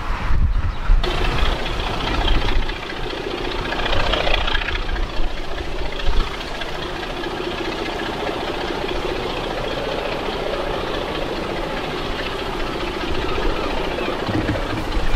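Class 26 diesel locomotive's Sulzer six-cylinder engine working under power as it approaches hauling coaches, a steady engine drone that swells briefly about four seconds in. A short low rumble comes in the first second.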